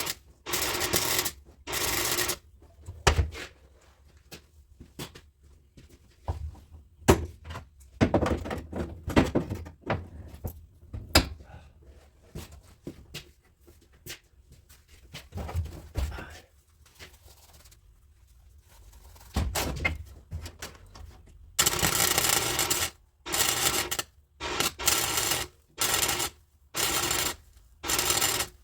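Welder laying short stitch welds on sheet-metal floor patches: a series of noisy bursts of about a second each, separated by short pauses. Scattered knocks and clatter of metal handling come in between.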